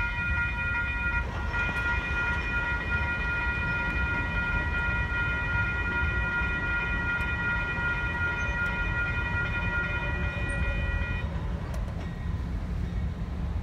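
Railroad grade-crossing warning bell ringing steadily while the crossing gates lower; it stops about eleven seconds in, once the gates are down. A steady low rumble lies underneath.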